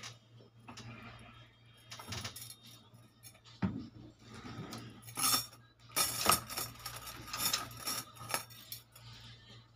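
A stack of gold bangles clinking and jingling against one another as they are handled: scattered light clinks at first, then a busier run of louder clinks from about the middle to near the end.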